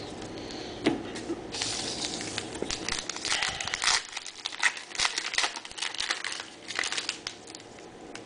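A 2011 Topps Lineage trading-card pack wrapper crinkling and tearing as it is opened by hand. It gives a run of sharp crackles, with a denser stretch of tearing and crinkling about a second and a half in.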